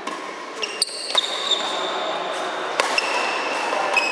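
Badminton rally: a shuttlecock struck by rackets several times as sharp cracks, mixed with short high squeaks of sneakers on the court floor.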